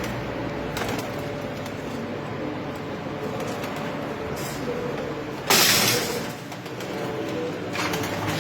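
Domestic pigeons cooing in a rooftop loft. About five and a half seconds in, a sudden loud rush of noise breaks in for under a second.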